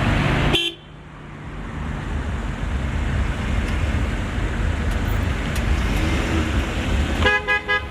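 Road traffic noise of car engines and tyres, which drops abruptly under a second in and then builds back up. A car horn sounds briefly near the end.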